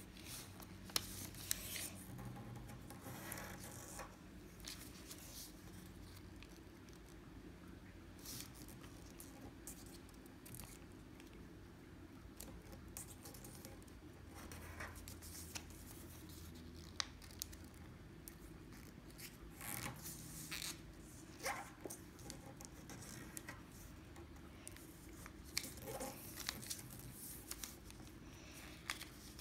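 A sheet of origami paper being folded and creased by hand: soft rustling and short, sharp crinkles and taps, scattered irregularly, as folds are pressed flat against the tabletop. A faint steady low hum lies underneath.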